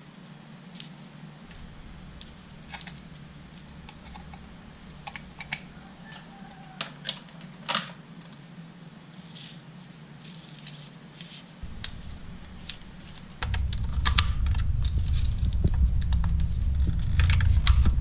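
Hands handling electrical wires and tape: scattered small clicks and rustles over a steady low hum. In the last four seconds or so a much louder low rumbling handling noise sets in, with more clicks.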